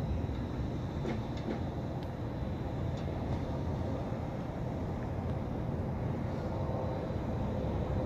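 Steady low rumble of outdoor background noise, with a few faint clicks about a second in and again near three seconds.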